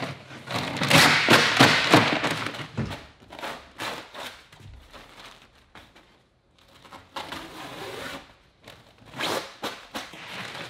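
Peel ply being ripped off cured fibreglass tabbing on the bulkheads, in rasping tearing pulls around the start and again near the end, with scattered knocks and thuds against the plywood and fibreglass locker walls.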